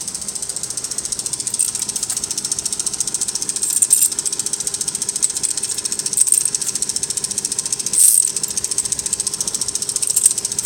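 Motor-driven K'nex toy paper shredder running, its plastic gears and blades clicking rapidly and evenly. It surges louder for a moment four times, about two seconds apart.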